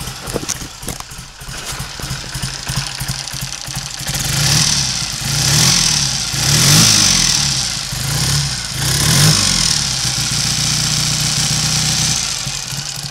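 Triumph 3TA's 350cc parallel-twin engine running shortly after a cold start, still warming up. It idles steadily, its revs rise and fall several times in the middle, then it settles back to an even idle. It is running cleanly now that the ignition timing is back at its earlier setting.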